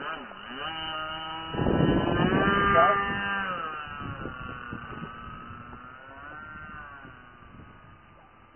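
The Swallow 40 aircraft's engine droning in flight, its pitch dropping as it passes, then rising and falling as it manoeuvres while fading away into the distance. A gust buffets the microphone with a rumble between about 1.5 and 3.5 seconds in.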